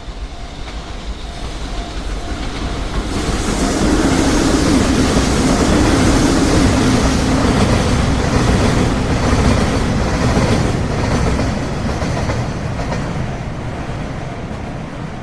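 A train passing, its wheels and cars rumbling along the rails. The sound builds to a peak about four seconds in, holds, then slowly fades as it goes by.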